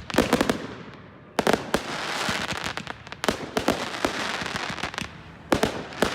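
Aerial fireworks going off: sharp bangs in quick pairs and clusters every second or two, each followed by a crackling fizz that dies away.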